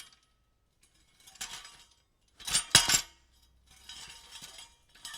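Loose metal pieces being shuffled and jostled together, clinking and jangling in separate bursts: a faint one about a second and a half in, a loud one of several sharp clinks near three seconds, then lighter jingling.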